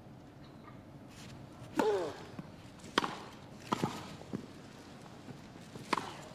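Tennis balls struck by rackets in a rally on a grass court: a string of sharp pops spaced about a second apart. With the first hit comes a short vocal sound falling in pitch.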